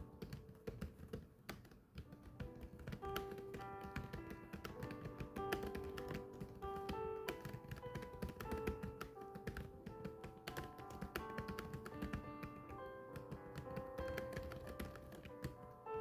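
Steady rapid typing, a dense run of key clicks, over background music with held melodic notes.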